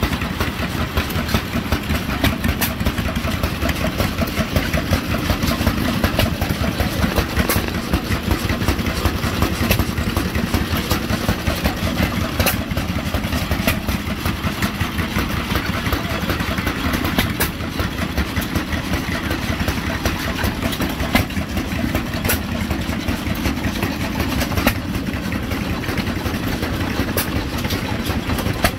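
Antique stationary gas engines running: a steady, rapid chuffing that goes on throughout, with an occasional sharper crack standing out every few seconds.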